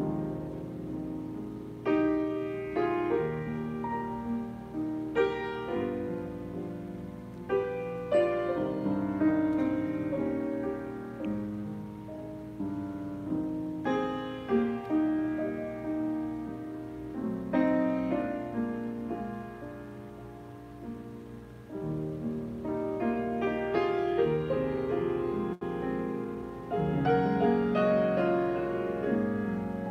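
Solo grand piano playing a hymn arrangement: full chords struck every few seconds and left ringing, growing louder near the end.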